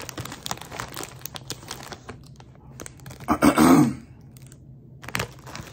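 Snack eating: chewing hot fries and crinkling of a chip bag, a run of small crackly clicks for about three seconds. About three seconds in comes a brief, loud, low vocal sound.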